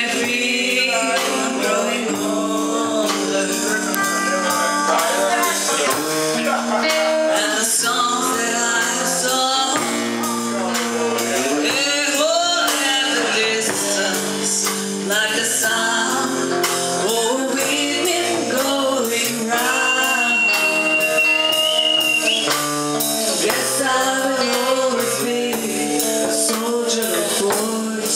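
A live rock band playing a song: a female singer sings into a microphone over electric guitar and a drum kit keeping a steady beat.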